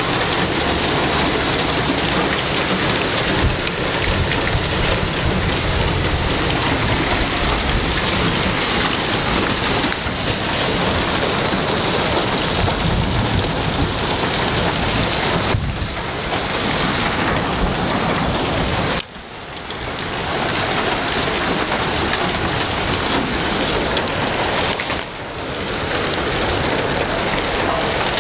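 Heavy hail and rain pelting the ground, a dense steady hiss and clatter. It drops off suddenly about two-thirds of the way through, and briefly again a few seconds later, each time building back within a second or two.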